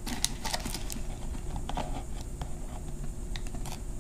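Scissors cutting through foil-faced bubble insulation and sticky tape, a string of small irregular snips and crinkles.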